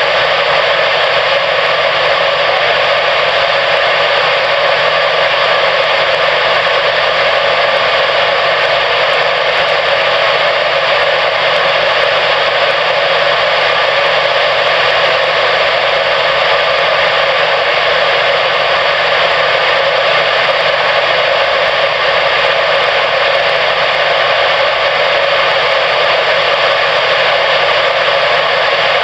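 Steady static hiss from a CB radio receiver between transmissions, loud and unchanging, limited to the radio's narrow audio band.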